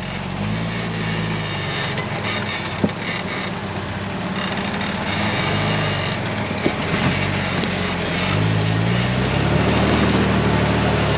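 4x4's engine working slowly over an off-road trail, its pitch rising and falling several times with the throttle and getting louder near the end. A few short sharp knocks sound along the way.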